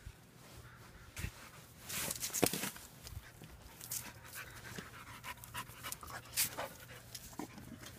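A dog panting and sniffing in short, irregular breaths.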